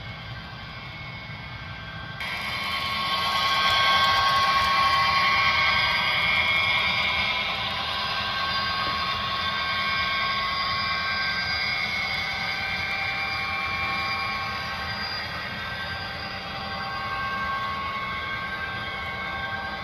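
Model train running past on the layout track: a Union Pacific SD70M model locomotive's motor whine and the wheels rolling over the rails as it hauls coal hoppers. The sound rises about two seconds in and is loudest a few seconds later as the locomotive passes close.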